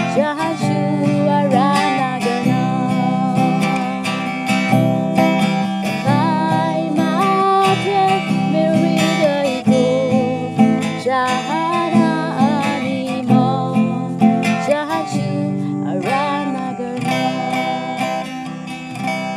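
A woman singing a worship song in Nepali, accompanying herself with strummed chords on an acoustic guitar.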